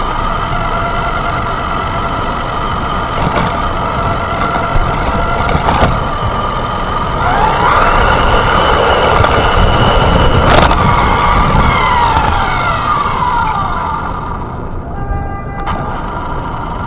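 A siren wailing, its pitch rising and then falling, loudest around the middle, over the steady rumble of a small RC truck driving on pavement with the microphone on board. A couple of sharp knocks come through, the clearest about two-thirds of the way in.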